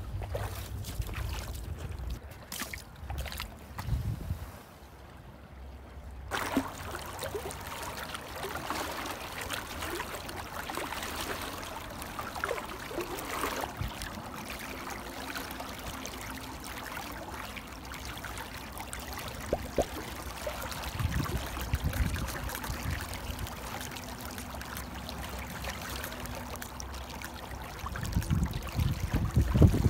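Fast, shallow river riffle running over stones: a steady rushing and rippling of water. Low rumbles of wind on the microphone come in at the start and again near the end.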